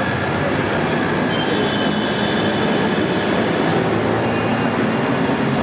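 Steady background noise of passing road traffic, with a faint high whine about a second and a half in.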